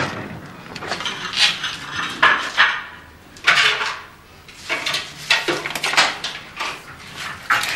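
Hand brush sweeping dirt off stair steps into a dustpan: a series of short, irregular brushing and scraping strokes, with the dustpan scraping on the steps.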